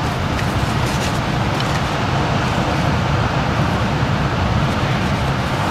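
Winter surf breaking along the shore, a steady rush of waves without pause, with a few faint small clicks.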